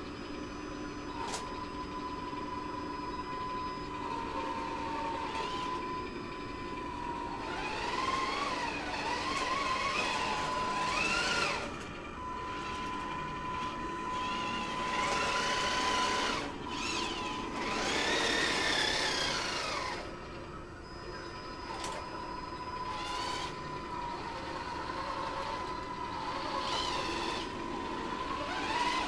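1:16 scale RC model tanks driving, the Tamiya Leopard 2A6 towing the Hooben T-55: a motor whine that rises and falls in pitch several times as they speed up and slow down, over a steady high tone.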